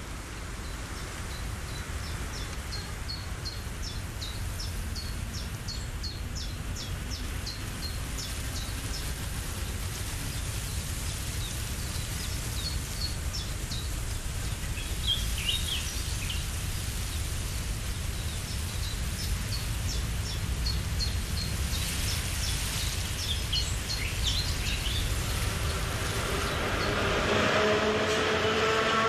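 Outdoor background with a steady low rumble and a bird chirping repeatedly in quick bouts of short high calls. Near the end an electric train comes in on an elevated track, its rising whine growing louder.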